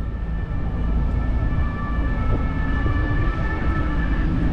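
Wind and road rumble on the microphone of a camera riding on a moving bicycle. Over it runs a steady high whine of several overlapping tones.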